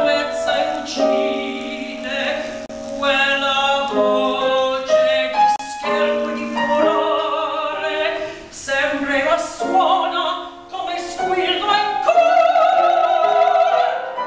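A woman singing opera with piano accompaniment, in phrases of held notes, ending on a long, loud high note sung with vibrato.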